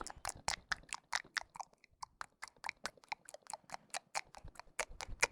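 Rapid, irregular clicking, about five or six sharp clicks a second, fairly faint.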